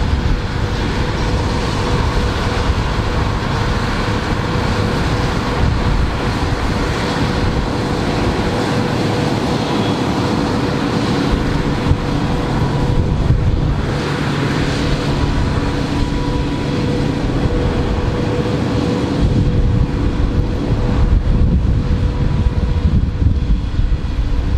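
Fendt 820 Vario TMS tractor running under steady load while driving a Dragone flail mulcher through standing cover crop, with a steady whine over the engine. It gets louder and deeper from about two-thirds of the way through as the tractor comes closer.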